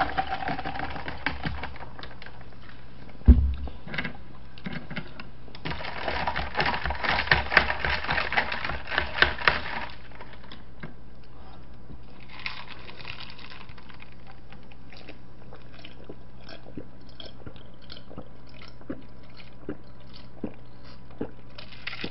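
A drink being poured into a glass in two stretches of hissy, crackling noise. A single sharp knock comes about three seconds in, and faint scattered clicks follow.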